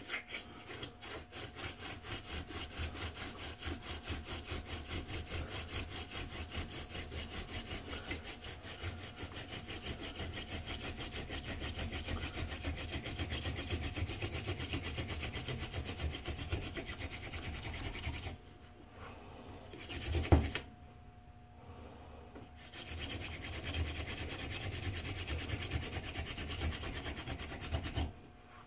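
Hand-drill fire by friction: a mule's tail weed (horseweed) spindle twirled back and forth between the palms, its tip grinding in a cedar hearth board with a fast, even rubbing. The rubbing stops for a few seconds a little past halfway, with a single sharp thump in the pause, then resumes and stops again just before the end.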